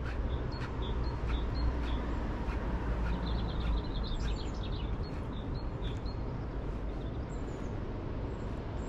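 Small birds chirping now and then over a steady low rumble, with faint regular ticks about twice a second in the first second or so.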